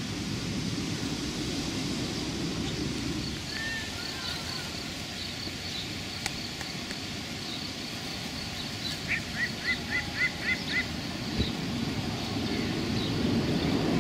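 Outdoor ambience: a steady low rumble with faint high chirping throughout. About two-thirds of the way through, a bird calls a quick, evenly spaced run of about seven short notes.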